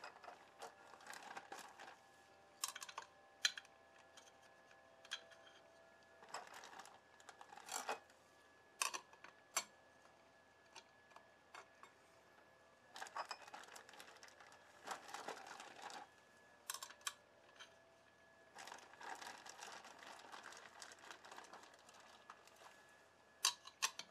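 Oil-soaked friction and steel clutch plates from a Barnett kit being slid one by one onto the clutch hub of a Honda VTX1800. Scattered light metallic clicks and clinks, with stretches of rustling from gloved hands.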